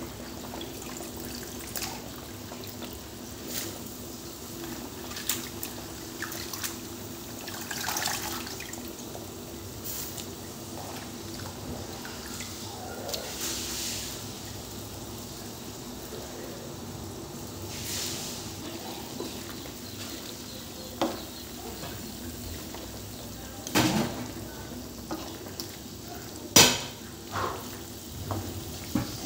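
Broth simmering in a metal wok while Chinese cabbage leaves are piled in, with scattered small clicks and knocks. Near the end a spatula knocks sharply against the wok a few times as the cabbage is pushed down.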